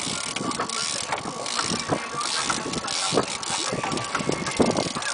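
Heavy-duty fishing reel being cranked under load, its gears and handle clicking steadily as a fish is reeled up on a deeply bent rod.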